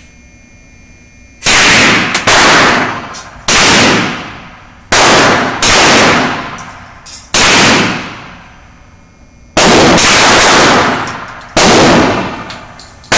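Gunshots from a firearm: about eight single shots fired at uneven intervals, each cracking loud and ringing out for about a second. The first comes about a second and a half in.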